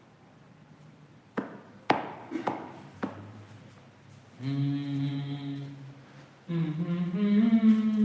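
A few sharp knocks, then a person humming one level note for about a second and a half. From about two-thirds of the way in, humming or singing with a moving pitch.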